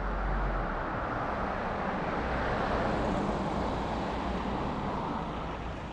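A car driving past on a town street, its tyre and engine noise building to a peak around the middle and then easing off.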